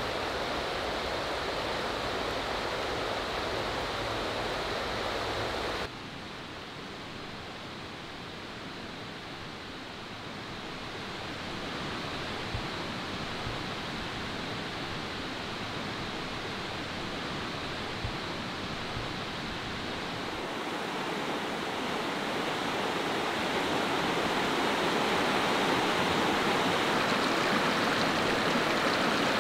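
Small, clear mountain river running shallow over rocks: a steady rushing of water that drops abruptly to a quieter level about six seconds in and grows louder again toward the end.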